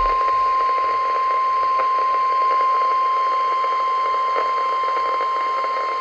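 NOAA Weather Radio warning alarm tone: one steady 1050 Hz tone over radio static. It is the signal that a weather warning, here a severe thunderstorm warning, is about to be broadcast.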